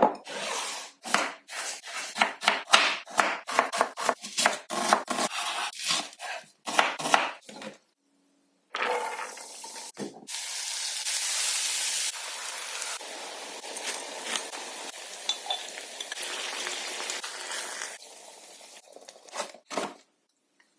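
A knife chopping on a cutting board in many quick, uneven strokes. About nine seconds in, a steady sizzle of food frying in oil in a pan takes over.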